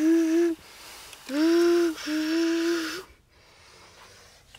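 A person imitating a ship's horn with their voice: a long, breathy, held note that ends about half a second in, then a second held note of nearly two seconds with a brief break in the middle.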